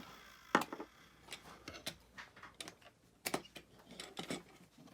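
Irregular light clicks and taps of small hard objects being handled, a sharper knock about half a second in and another just past three seconds.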